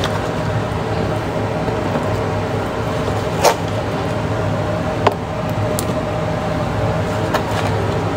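A steady low mechanical hum, like a fan or kitchen appliance, with a few sharp clicks and knocks of kitchen utensils against containers while salad ingredients are layered in. The two loudest knocks come about three and a half and five seconds in.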